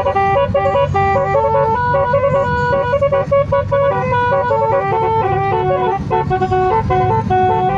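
Basuri multi-tone bus air horn playing a telolet melody, one note after another at a quick steady pace, over a low rumble underneath.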